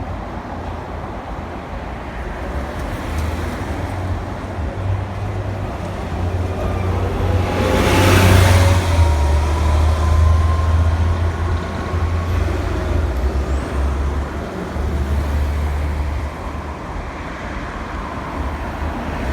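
Road traffic, with a vehicle passing close about eight seconds in, loudest then and fading over the next few seconds, over a steady low rumble.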